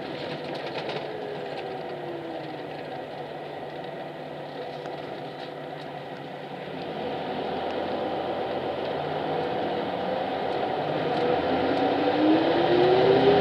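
Highway coach running, heard from inside the passenger cabin: a steady engine and road noise. A whine falls in pitch in the first couple of seconds as the bus slows, and another whine rises and grows louder in the last few seconds as it picks up speed.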